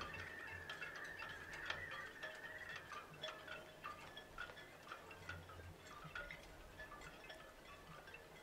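Faint scattered chime-like tinkling notes over a low hum, with one high note held through the first three seconds.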